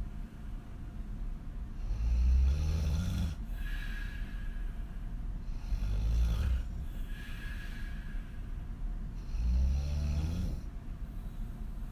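Woman snoring hard on her back with her mouth wide open. There are three loud snores about four seconds apart, each rising in pitch as she breathes in. The first two are each followed by a softer exhale with a faint whistle.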